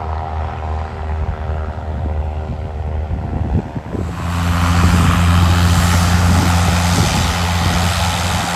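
Propeller aircraft engines droning with a steady low hum; about halfway through the sound swells suddenly into a louder rushing roar as the plane comes close.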